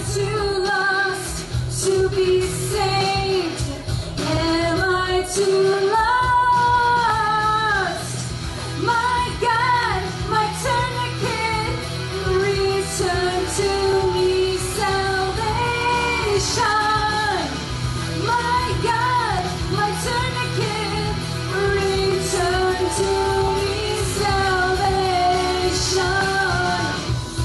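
A woman singing a pop song into a handheld microphone over a backing track, amplified through the hall's PA, her voice holding and bending notes in a continuous melody.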